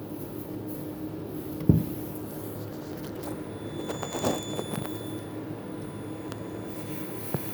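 Electronic throttle body from a 2.3 JTD diesel being driven on test: a sharp click about two seconds in as the throttle flap snaps over, a cluster of clicks and rattles about halfway through with a thin high electrical whine from the actuator, and another click near the end, over a steady low hum.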